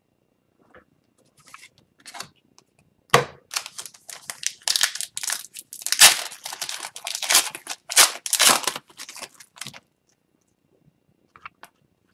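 Upper Deck Series 2 hockey card pack wrapper being torn open and crinkled: a few light crackles, a sharp snap about three seconds in, then about six seconds of dense tearing and crinkling that stops near the end.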